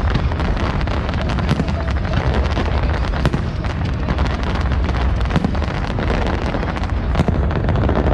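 Fireworks display: a dense run of bangs and crackles from bursting shells, several a second, over a steady low rumble.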